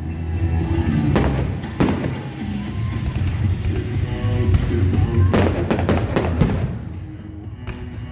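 Fireworks bursting overhead, a few sharp bangs early on and a denser cluster of bangs and crackles a little past halfway, over loud music with a heavy bass.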